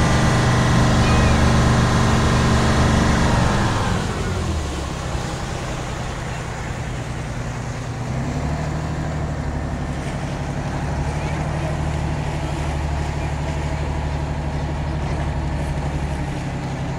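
Tour launch's engine running with a steady drone. About four seconds in, its revs fall and the drone drops in pitch and loudness, then it settles to a lower steady hum that picks up slightly a few seconds later.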